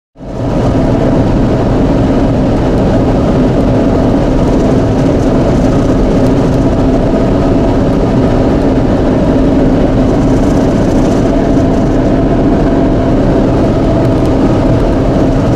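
Steady road and engine noise inside a car cruising at highway speed, with a constant low drone. It fades in over the first moment.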